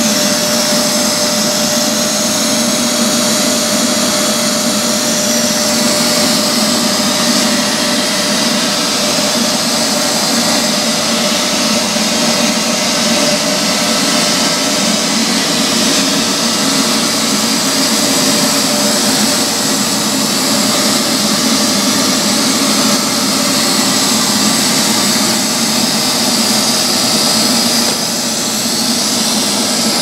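Neato XV Signature Pro robot vacuum running on a tile floor: a steady, even machine noise with a constant hum.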